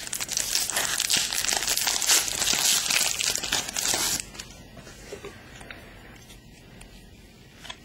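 A Panini Playoff Contenders basketball card pack wrapper crinkling and tearing as it is ripped open by hand. The crinkling stops about four seconds in, leaving only faint handling of the cards.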